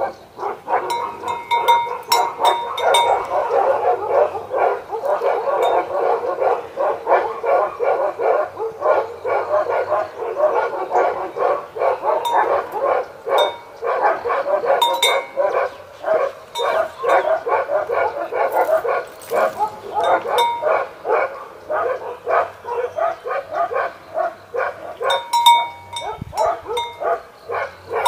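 Dogs barking in a rapid, near-continuous stream of short barks throughout.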